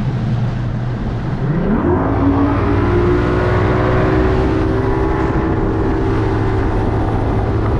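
Bass boat's outboard motor throttling up, its pitch rising about two seconds in, then running steadily at high speed.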